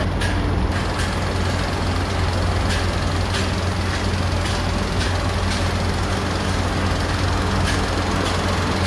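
A steady low mechanical drone with a hum, with a few faint clicks scattered through it.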